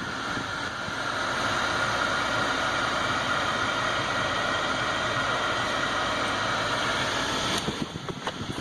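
Steady rushing air from the 2016 Buick Envision's cabin ventilation blower, with the engine idling, that drops away about seven and a half seconds in. A few short clicks follow near the end.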